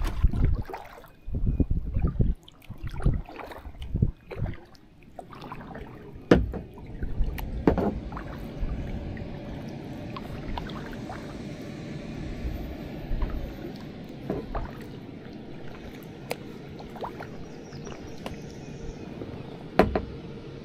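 Kayak paddling on a river: the paddle dips and water trickles and pours off the blade over steadily moving water, with scattered sharp clicks. It is choppier and louder in the first few seconds, then settles to a steady wash.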